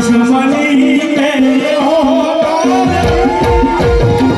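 Ghazal music with tabla drumming under a gliding melodic line and a held steady tone. The low drum strokes come in strongly about three seconds in.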